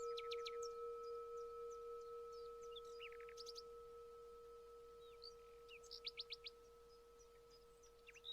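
A bell rings out with a steady tone that slowly fades, struck just before this point. Small birds chirp over it in several short, quick trills of repeated notes.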